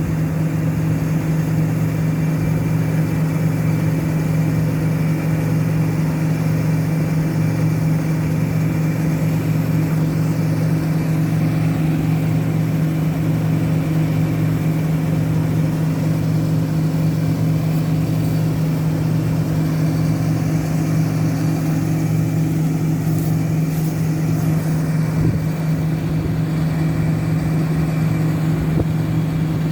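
Heavy diesel harvest machinery running steadily, a constant low drone, while a combine harvester unloads its grain.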